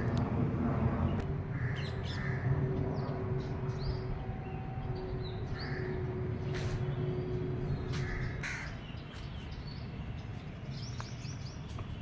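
Crows cawing a few times, with small birds chirping, over the low rumble and hum of an aeroplane passing overhead that slowly fades.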